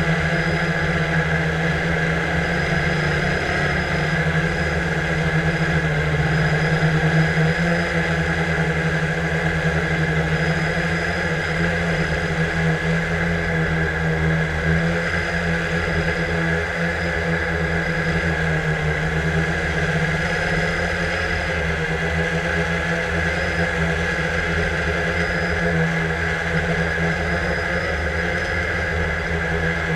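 Quadcopter drone's electric motors and propellers running in flight, a steady buzzing hum with a few small shifts in pitch, recorded by the camera mounted on the drone.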